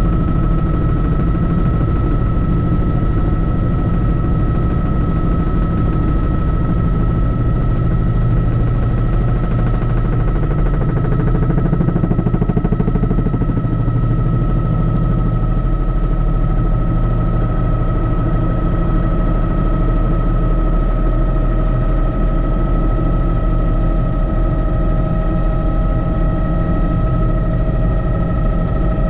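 Helicopter in flight, its main rotor making a rapid, even chop over a low drone, with a steady high whine from the drivetrain running throughout.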